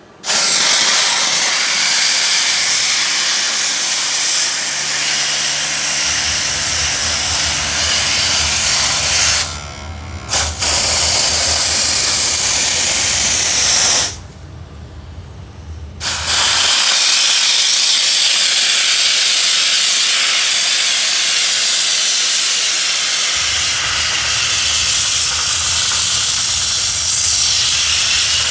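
Wet steam jet from an Optima Steamer CMF hissing loudly as it flushes dirt out of a ductless mini-split's coil. The hiss stops twice briefly, about ten seconds in and again around fourteen seconds in, with a low hum coming and going underneath.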